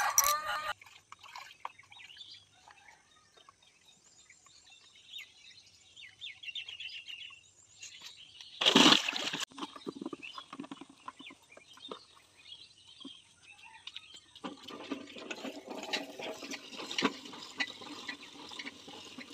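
Water splashing in a plastic bucket as leafy greens are swished and lifted out by hand, with one loud splash about nine seconds in. Water then runs and sloshes steadily into the bucket for the last five seconds.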